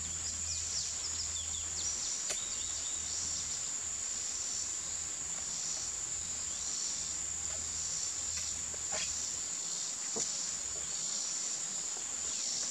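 A steady, high-pitched chorus of insects, with a few faint clicks of the air rifle being handled as its muzzle compensator is taken off.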